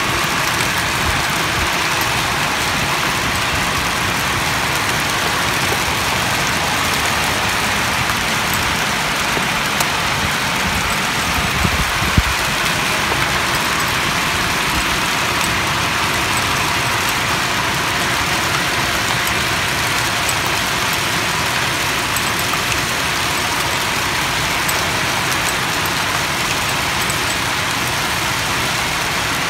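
Heavy rain pouring steadily onto roofs and a gravel roof, a loud even hiss with no break. A single brief knock about twelve seconds in.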